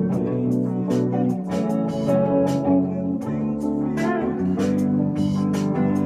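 A live band playing a song on electric guitars, bass guitar and electric keyboard, over a steady beat of sharp percussive hits.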